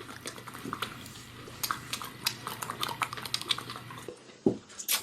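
Wet lip-smacking and sucking close to the microphone: a run of quick moist mouth clicks, with a louder pop or two near the end.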